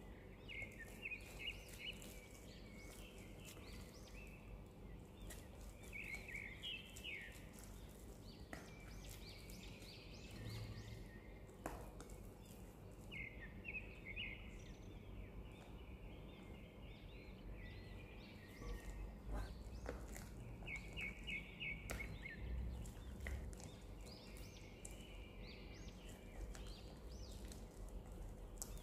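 Faint scraping and tapping of a silicone spatula against a glass bowl as whipped cream is folded into a thick cream cheese mixture. A bird chirps in short, quick phrases every several seconds in the background.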